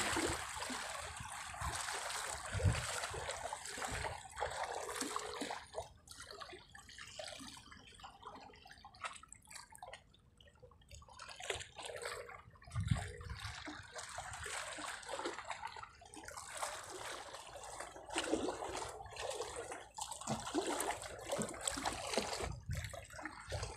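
Seawater lapping and sloshing against rocks at the shoreline, an uneven run of small splashes and gurgles, with a few dull low bumps.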